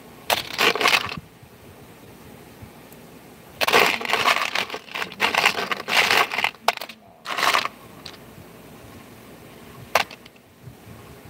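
Small parts clattering and rattling in a plastic bin as they are handled with gloved hands. There is a short burst near the start, a longer run of bursts in the middle, and a single sharp clack about ten seconds in.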